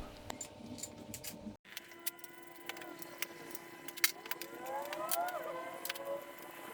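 Scattered light metallic clicks and knocks of engine parts and tools being handled while a water pump is fitted, over faint whistling tones that glide up and down, loudest about five seconds in.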